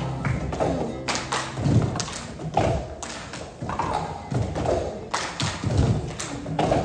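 A group of children beating out a cup rhythm, knocking and tapping cups on the stage floor in a rhythm of sharp knocks, about two a second.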